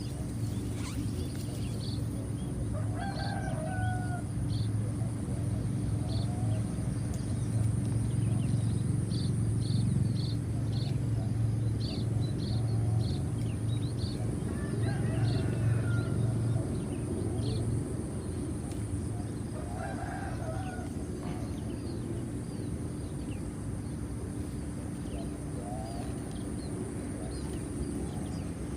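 A rooster crowing three times, over a low steady rumble, a steady high-pitched drone and many short high chirps.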